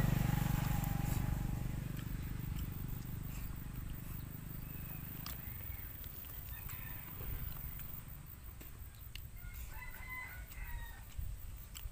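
A low engine rumble fades away over the first few seconds, then a rooster crows about ten seconds in.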